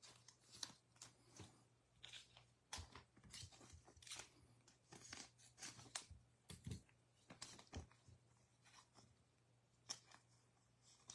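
Faint, scattered rustles and small clicks of trading cards being handled and shuffled by hand.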